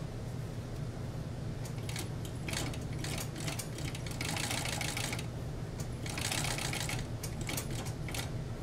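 Furrier's fur-sewing machine with two horizontal feed discs running on mink fur: its motor hums steadily, with a few clicks and two bursts of rapid stitching about four and six seconds in.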